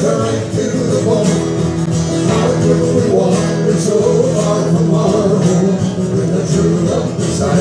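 Folk-style music: acoustic guitars strummed in a steady rhythm, with singing.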